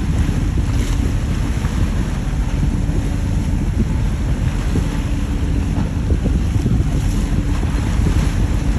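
Fishing dhoni under way at sea: a steady low rumble from the boat and rushing water, with wind buffeting the microphone.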